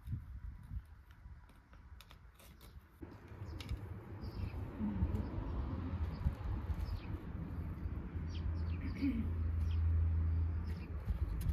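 Soft clicks and scrapes of hands working garden soil, then birds chirping now and then over a low steady rumble that grows louder near the end.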